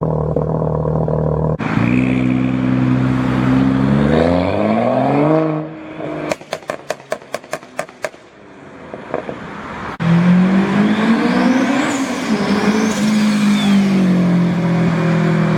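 Car engines at high volume: one holds steady revs, climbs in pitch and is let off, followed by a quick string of about nine sharp exhaust pops and crackles. Then another loud engine revs up and back down, with a high whine rising and falling above it.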